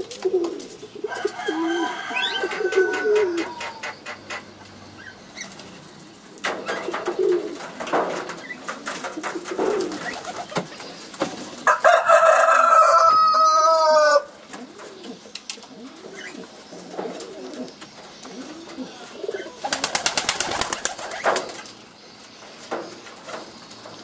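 Domestic pigeons cooing over and over, low coos that rise and fall. About halfway through a louder, higher-pitched bird call lasts about two seconds, and near the end there is a short noisy burst.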